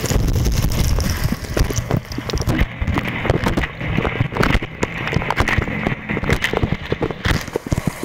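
Dishwasher running mid-wash, heard from inside the tub: water spray spattering and drumming irregularly on the racks and the camera's waterproof housing, over the low steady hum of the wash pump.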